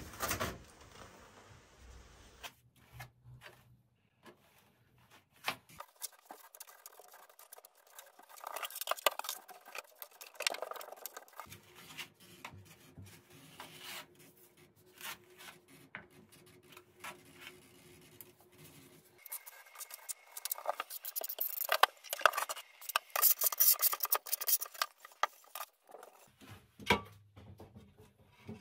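Steel trowel scraping and spreading thinset mortar on a shower wall: many quick, irregular scratching and rasping strokes that come in clusters.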